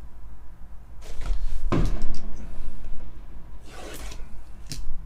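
Cardboard Topps Finest hobby box being opened and handled: a few short scrapes and rustles of the card-stock lid and flaps, the loudest about two seconds in, and a sharp click near the end.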